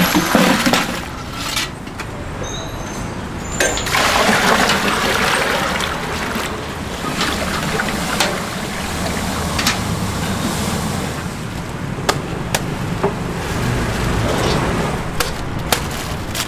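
Street-food wok cooking: a steady sizzling hiss of frying, swelling louder near the start and again about four seconds in, with a few sharp metal clinks of a spatula on the wok.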